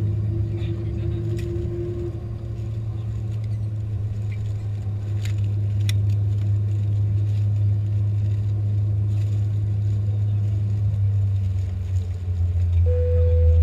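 Steady low cabin hum inside an Airbus A310-300 standing at the gate, with a few faint clicks. Near the end the hum drops lower and grows louder, and a steady higher tone comes in.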